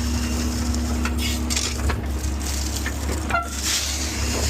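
Mini excavator engine running steadily, with two stretches of gritty scraping as the bucket digs through dirt and rock.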